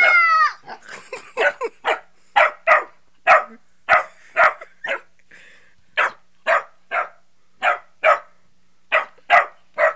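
Small black dog barking over and over, about twenty short, sharp barks at roughly two a second, with a brief pause about halfway through.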